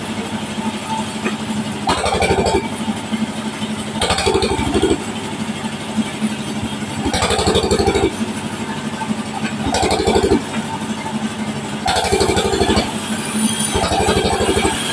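Band sawmill cutting lengthwise through a log. A steady machine hum runs under louder surges that come about every two to three seconds.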